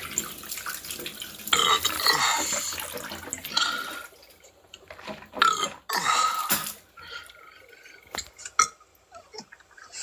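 A person burping: two long burps, the first about a second and a half in and the second a little after five seconds, with a few small clicks between and after.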